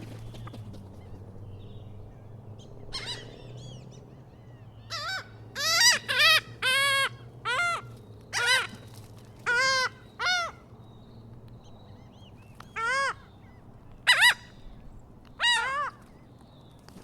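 Large birds calling outdoors: about a dozen short, loud calls, one at a time and sometimes in quick pairs, with a pause of a couple of seconds in the middle.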